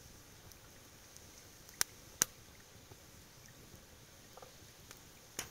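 Open wood cooking fire: a faint steady hiss with a few sharp snaps, two close together about two seconds in and another near the end.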